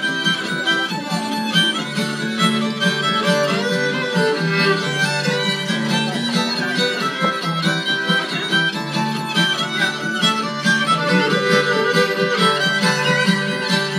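Two fiddles and an acoustic guitar playing a Cajun song live, with bowed fiddle lines over strummed guitar.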